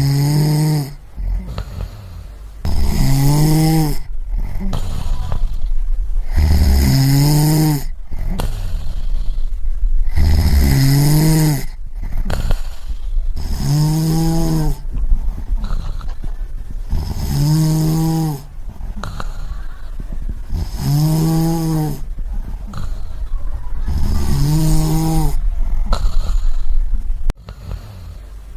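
A person snoring in a steady rhythm, about one snore every three and a half seconds, eight in all. Each snore is a pitched rasp that rises and falls over about a second, with breathy noise between snores.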